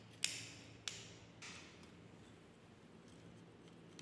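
Small precision screwdriver clicking and scraping against the plastic camera housing of an E88 toy drone: a sharp click about a quarter second in, another about a second in, and a softer scrape soon after, then quiet handling.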